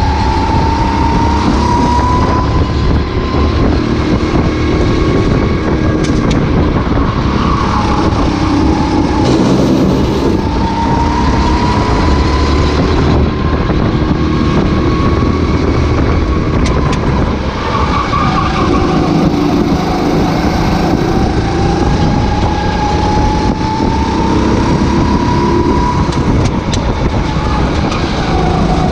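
Racing kart's two-stroke engine heard from onboard, its revs climbing and dropping back several times as it drives, under heavy wind noise on the microphone.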